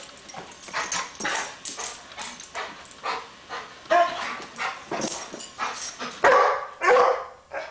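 Yellow Labrador retriever barking and yipping in quick succession, excited as it jumps after a helium balloon. The two loudest barks come near the end.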